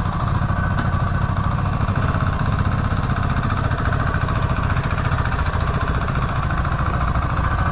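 Motorcycle engine idling steadily with a fast, even beat.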